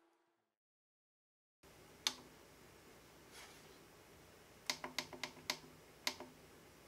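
Dead silence for about a second and a half, then the push buttons on an Elecraft KPA1500 amplifier's front panel clicking as they are pressed to step through its menu. One click, a quick run of about five a couple of seconds later, then one more.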